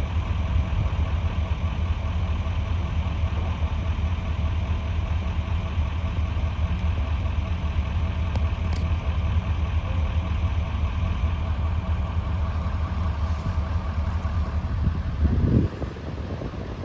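An engine idling steadily with a low, fast pulsing beat. The engine sound cuts off abruptly near the end.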